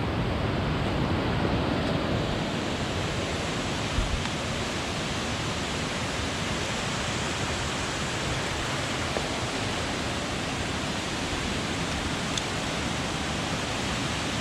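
Steady rushing roar of a waterfall and river water, with one brief thump about four seconds in.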